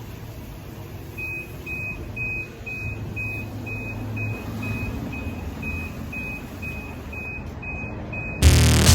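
A vehicle's electronic warning beeper sounding a steady, single-pitched beep about twice a second over a low engine hum, then loud electronic music cutting in suddenly near the end.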